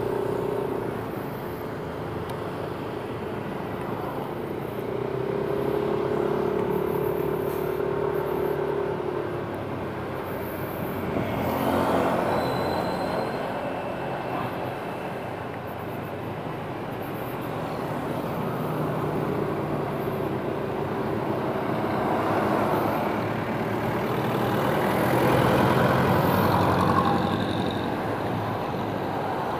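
A motor scooter's engine running while it is ridden, with steady road and wind noise; the engine note and loudness rise and fall a few times with speed.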